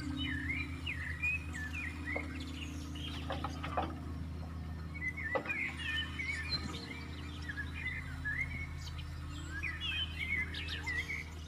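Small birds chirping in quick repeated calls over a steady low engine hum, with a few short knocks.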